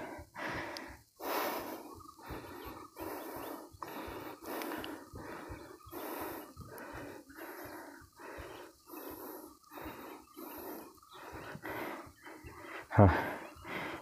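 A person breathing hard and fast, one breath in or out after another in a quick, even rhythm: out of breath after climbing a steep hill.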